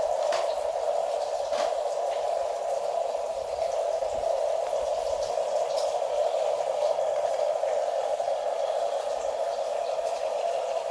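Small electric motors and plastic gearboxes of RC construction toys running with a steady whir, with a few light clicks.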